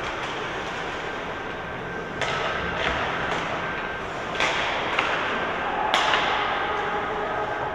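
Ice hockey play: a handful of sharp clacks and thuds of sticks and puck, the loudest about six seconds in, over a steady rink background.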